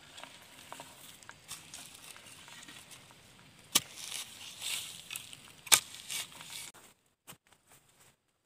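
A long-handled digging tool working into dry soil and leaf litter to dig out a burrow, with scattered rustling and crackling and two sharp knocks, about four and six seconds in. The last couple of seconds are nearly quiet.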